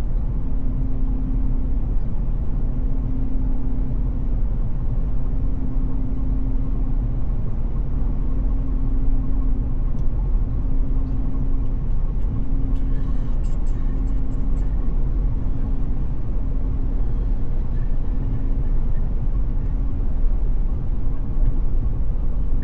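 Cabin noise of a Tesla Cybertruck at highway speed, about 66–70 mph on a rain-soaked road: a steady low rumble of tyres, road and rain. Over it runs a hum that cuts out and comes back roughly every second and a half.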